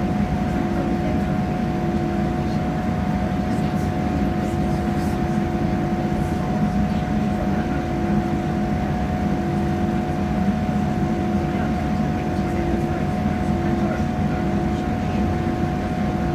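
Passenger train running at speed, heard from inside the carriage: a steady low rumble with a constant hum of engine and traction tones.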